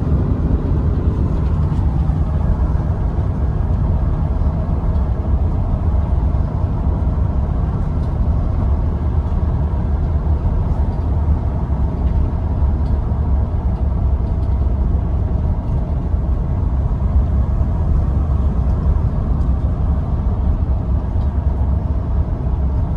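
Steady low rumble of a car on the move, heard from inside the cabin: engine and tyre noise at an even speed.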